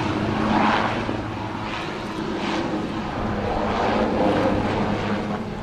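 Eurocopter AS532UL Cougar twin-turbine helicopter in flight: a steady low hum from turbines and rotor, with the rotor noise swelling and fading several times.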